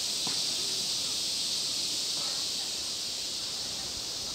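Steady, high-pitched drone of insects in the trees, with no break or change.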